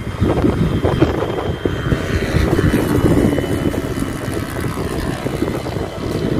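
A radio-controlled model airplane's motor, a thin steady whine that is strongest in the middle, heard over heavy wind buffeting on the microphone.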